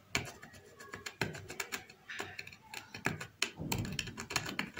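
Metal tweezer tip scratching the coating off a TV LED backlight strip to bare the copper for soldering: irregular light scratches and clicks.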